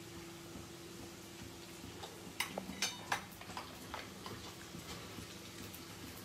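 Light clicks and taps of a glass tumbler and ceramic plate being handled while mashed potato is pressed around the glass, bunched about two and a half to three seconds in, over a faint steady hum.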